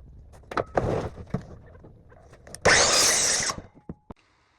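Knocks and scrapes of a wooden 2x10 board being handled, with a loud rough noise lasting about a second a little before the end.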